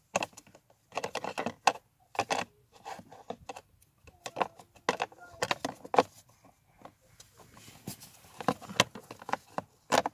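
Plastic parts of a VW T5.1 pollen filter housing being handled as the new cabin filter is fitted: irregular bursts of clicks and rattles with short pauses between them.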